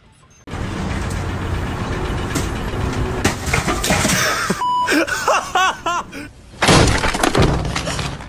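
Loud crashing and breaking noise that starts suddenly about half a second in and runs for several seconds, with a second loud crash a little before the end.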